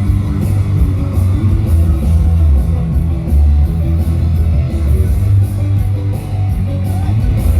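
Loud rock music with electric guitar and heavy bass, with a steady beat, played over a party sound system.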